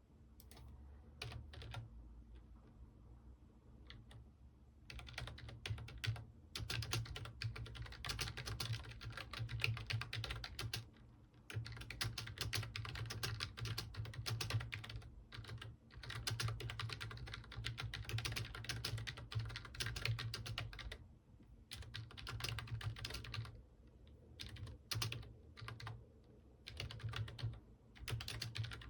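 Computer keyboard typing: a few scattered keystrokes at first, then fast runs of keystrokes lasting several seconds each, broken by short pauses.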